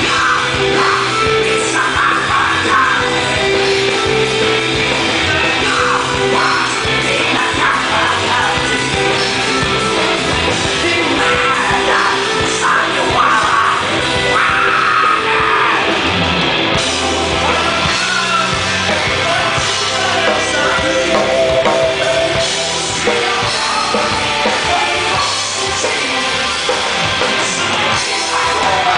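Live rock band playing at full volume: electric guitar, bass, drum kit and keyboard, with a singer's voice over them.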